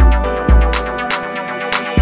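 Electronic background music with deep bass kicks and steady chord tones.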